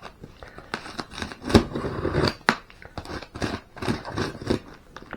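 Paper packaging on a shipping box being cut through, a run of irregular short cutting and tearing strokes, the sharpest about a second and a half and two and a half seconds in.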